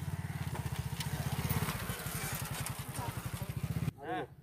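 A nearby engine idling with a steady, rapid low thumping, cutting off abruptly near the end, where a voice starts.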